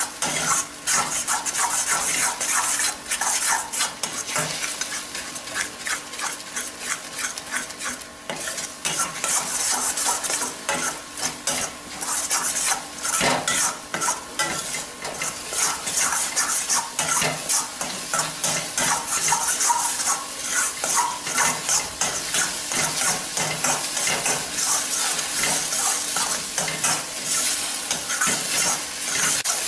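Beaten eggs sizzling in hot oil in a stainless steel kadai while a steel spatula stirs and scrapes them against the pan, in quick, irregular strokes. The eggs are being scrambled until they set into curds.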